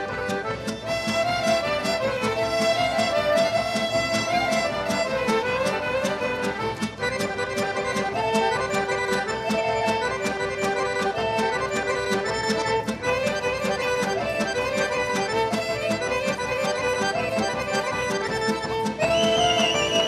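Traditional folk music from the Binačka Morava region played by a folk orchestra, with accordion carrying the melody over a steady, quick beat. A higher melodic part comes in near the end.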